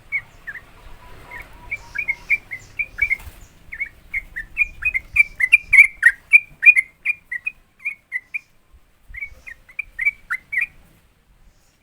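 Yellow-vented bulbul (trucukan) singing its rapid 'ropel' song: a quick run of short, chirping notes that gets busiest and loudest in the middle, breaks off briefly after about eight seconds, then resumes and stops shortly before the end.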